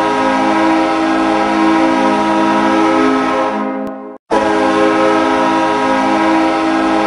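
Hockey arena goal horn blaring a long, steady multi-tone blast that fades out about three and a half seconds in. After a brief silence it starts again abruptly and holds, the signal that the home team has scored.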